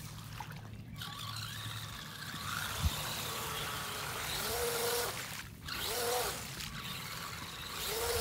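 An RC car's inflated rubber tires churning and splashing water as it drives into a lake and floats, under the motor's running. The splashing builds from about two and a half seconds in. A few short rising-and-falling tones sound over it in the second half.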